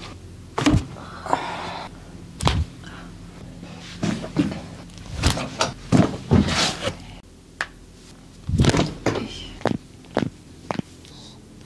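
Chiropractic adjustment: about a dozen sharp thuds and joint cracks at uneven intervals, several in quick clusters.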